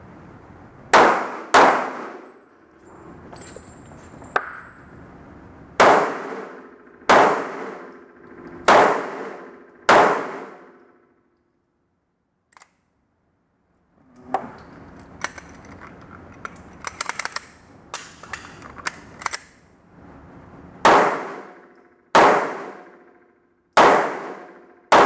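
Pistol shots from a Smith & Wesson M&P, ten in all: six in the first ten seconds, mostly in pairs, then four more near the end, each with a ringing echo. In between come a quiet pause and a run of small metallic clicks and clatter: a stoppage being cleared, which the shooter afterwards calls a double feed.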